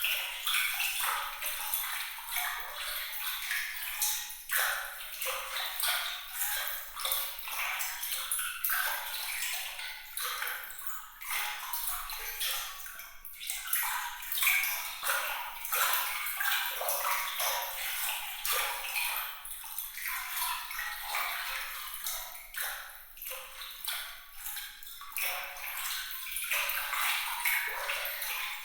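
Water trickling and splashing without pause, thick with small, bright, quickly changing droplet sounds and no low rumble.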